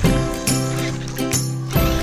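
Background music: pitched notes changing every half second or so over held bass notes.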